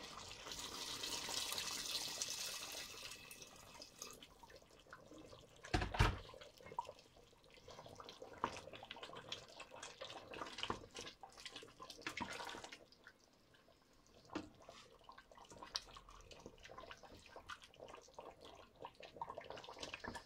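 Water poured into a stainless steel pot of chicken and sauce, a steady splashing hiss for about four seconds. A single loud knock comes about six seconds in, then a wooden spoon stirs the pot with scattered light knocks and scrapes against the metal.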